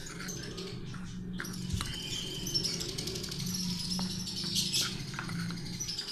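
A metal spoon stirring dry flour in a glass bowl, scraping with a couple of sharp clinks against the glass, over steady high chirping.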